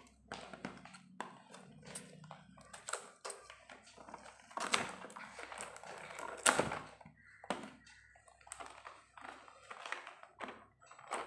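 Scissors cutting into a stiff plastic toy blister pack: irregular snips, clicks and crinkles of plastic, with two sharper snaps a little under five seconds in and again past six seconds.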